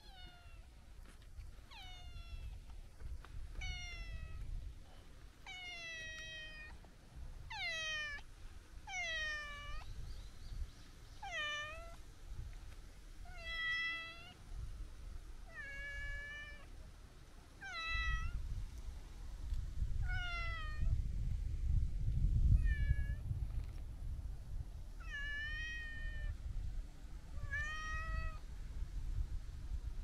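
A long-haired brown tabby-and-white cat meowing over and over, about a dozen short downward-sliding meows, roughly one every two seconds, while it is stroked. A low rumbling noise runs underneath, loudest about two-thirds of the way through.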